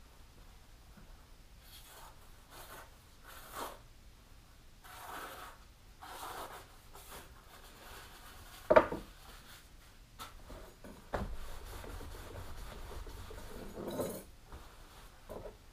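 Paper towel and cloth towel rustling and rubbing in irregular bursts as a kitchen knife is wiped clean between sharpening passes, with one sharp knock about nine seconds in and a steadier rubbing for a few seconds after it.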